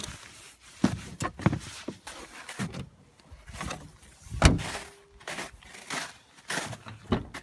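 Irregular knocks and thumps with some rustling, the loudest about four and a half seconds in.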